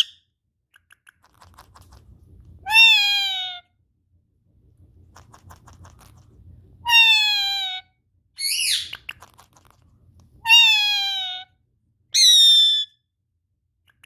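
Indian ringneck parakeet giving five loud calls, each under a second long and most falling in pitch, with the fourth swooping up before it drops.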